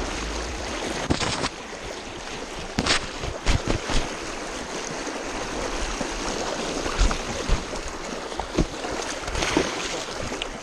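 Fast river current rushing and splashing right by the microphone, a steady wash of water noise broken by irregular sharp splashes.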